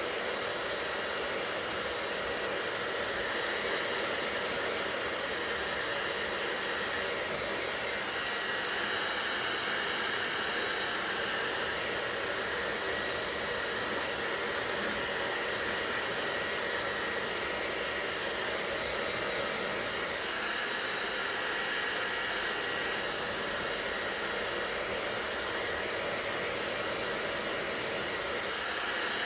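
Hair dryer running steadily, a constant blowing rush of air and motor, whose tone shifts slightly about eight seconds and again about twenty seconds in.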